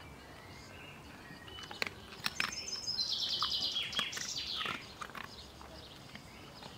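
A songbird singing a quick trill of repeated high notes that steps down in pitch and ends in a short flourish, with a few sharp clicks just before it.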